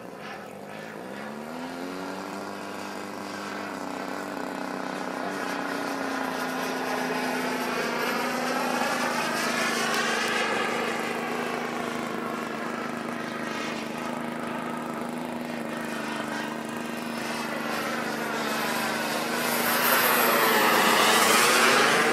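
RC Panther model jet flying overhead: an engine whine that climbs in pitch over the first couple of seconds and then holds steady, with a rushing jet noise that swells as the model passes, loudest near the end.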